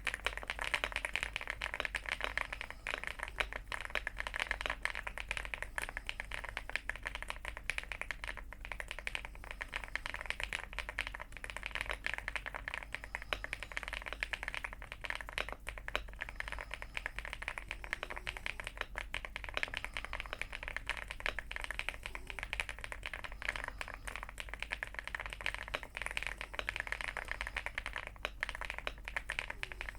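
Fast, continuous typing on a stock Aula Leobog Hi8 aluminium mechanical keyboard with Akko Cream Yellow linear switches and MDA-profile pudding keycaps: a dense, unbroken run of keystroke clacks.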